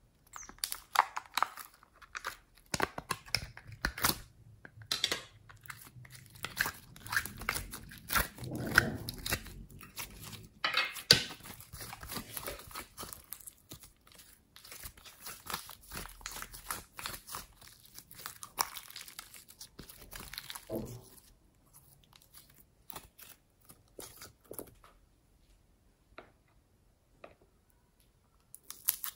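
Hands squishing and stretching glossy slime: a dense run of sticky clicks and crackles that thins out after about twenty seconds to a few scattered clicks.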